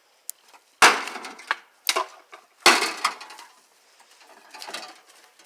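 Axe blows striking a microwave oven: two heavy hits about two seconds apart, each followed by rattling clatter of broken parts, with a lighter knock between them.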